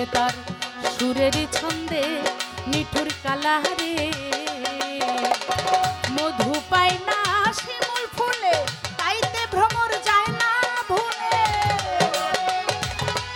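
A woman singing a Bengali folk song into a microphone, with a tabla played in fast, busy strokes beneath the melody.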